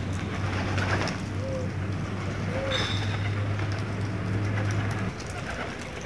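Pigeons cooing: two short, low coos about a second apart, over a steady low hum that stops about five seconds in.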